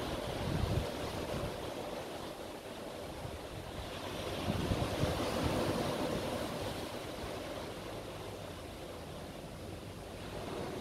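Sea surf washing onto the shore below, a continuous rushing wash that swells louder about halfway through, with low rumbles of wind on the microphone.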